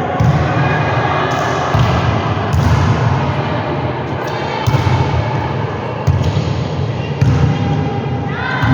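A volleyball struck and bouncing on a gym floor, a sharp thump every second or so, over a constant din of players' and spectators' voices echoing in the hall.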